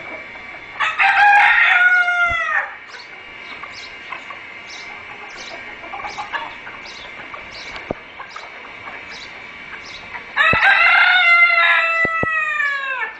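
A rooster crows twice, once about a second in and again near the end, each crow about two seconds long and dropping in pitch at its close. Between the crows, chickens cluck, and a faint high chirp repeats at an even pace.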